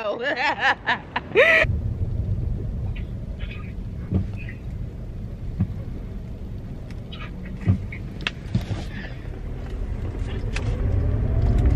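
Car engine running, heard from inside the cabin as a steady low rumble, with a few small clicks and knocks. Near the end the engine note rises and gets louder.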